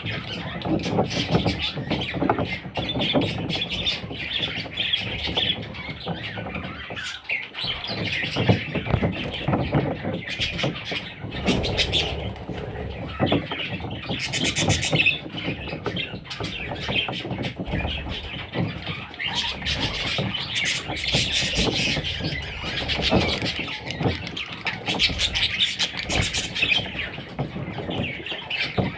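A group of budgerigars chirping continuously, many calls overlapping, with scattered sharp clicks.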